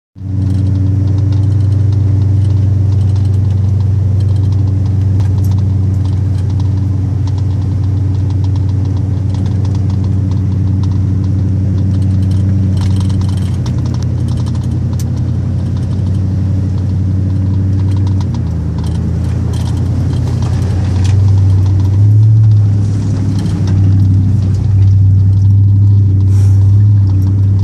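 Vehicle engine running at low speed, heard from inside the cab as a steady low hum; its note shifts a little in the second half.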